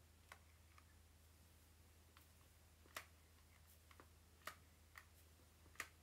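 Near silence with a steady low hum and a handful of faint, sharp clicks, the loudest about three seconds in and just before the end: a flat-iron hair straightener being clamped shut and handled.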